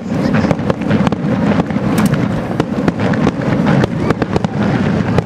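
Aerial fireworks going off in a dense barrage: many sharp cracks and bangs in quick succession over a continuous rumble.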